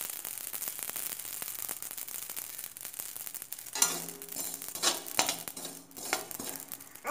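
Amaranth seeds popping in a dry kadhai with a steady fine crackle as they puff; the crackling shows they are still roasting, and they are ready when it stops. About four seconds in, a spatula scrapes and stirs them across the metal pan for a couple of seconds.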